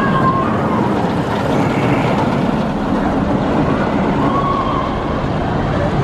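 Silver Bullet inverted steel roller coaster train running along its track overhead: a steady rumble of wheels on the steel rail.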